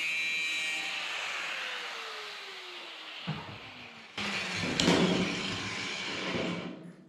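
Angle grinder with a thin cutting disc winding down after a cut in stainless steel sheet, its whine falling steadily in pitch as the disc slows. About four seconds in, a louder couple of seconds of knocking and scraping begins.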